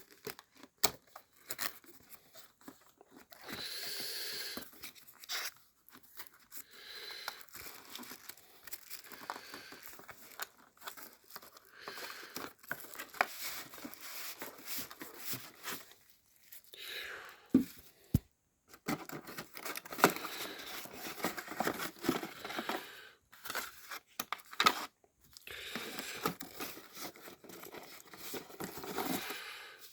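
A product box being opened by hand: packaging tearing and crinkling in irregular stretches, with a few sharp knocks, a couple of them close together a little past halfway.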